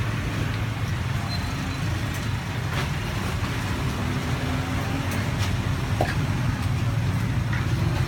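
Steady low rumble, with a few light clinks of a metal spoon against small cups as batter is spooned into them on a steamer.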